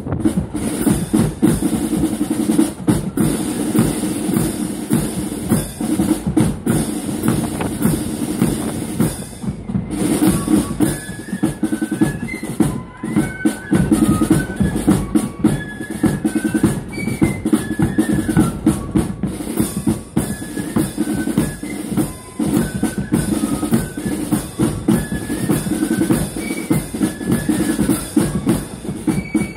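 Marching flute band on parade: side drums and a bass drum beating a steady march, with flutes taking up a high melody about ten seconds in.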